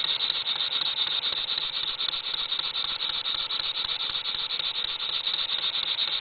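Stuart Real model steam engine running steadily at speed on compressed air, its exhaust air giving a fast, even beat.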